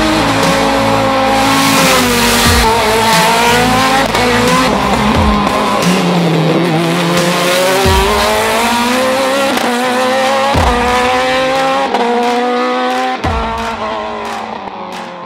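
Ligier sports prototype race car's engine revving hard and shifting up again and again, each climb in pitch breaking off and dropping at a gear change, with background music mixed underneath. It fades out near the end.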